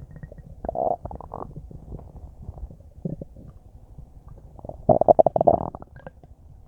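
Human stomach gurgling as it churns a large meal of spaghetti just eaten. A short bubbly gurgle comes about a second in and a faint one near three seconds. About five seconds in comes a louder run of rapid bubbling gurgles lasting about a second.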